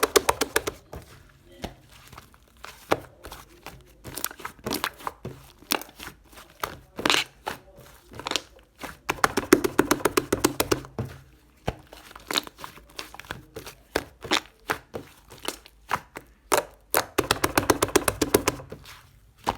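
White slime being squished and stretched by hand, giving many sharp clicks and pops. There are two long runs of rapid crackling, about halfway through and near the end.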